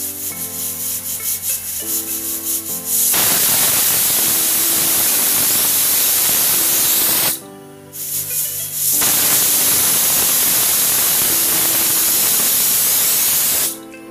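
Pressure cooker whistling twice on high flame: the weight lifts and steam hisses out loudly and steadily for about four seconds, then after a brief break a second whistle hisses for about five seconds. The two whistles are the sign that the rice is cooked. Soft background music plays underneath.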